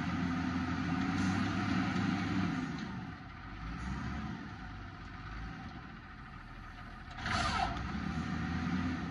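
Automated side-loader garbage truck's engine running raised to drive the hydraulic arm as it lifts a trash cart over the hopper and dumps it, dropping lower in the middle and rising again near the end. A little after seven seconds comes a short, loud hiss with a falling squeal.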